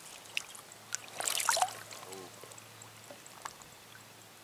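A brief splash of water about a second in, amid a few light clicks over a low steady hum.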